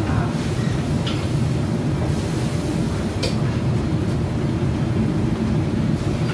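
Steady low rumble of a commercial wok range's gas burners and extraction hood, with a few sharp metal clanks of ladles against woks, about one second in and again near the middle.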